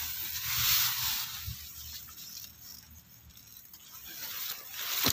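Paddy rice leaves rustling and scraping as they are pushed aside by hand close to the microphone, swelling about a second in and again near the end.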